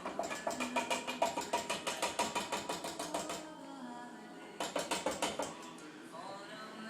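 A metal utensil knocking rapidly against a can or mixing bowl while the canned corn mixture is emptied, about five knocks a second in a long run and then a shorter burst.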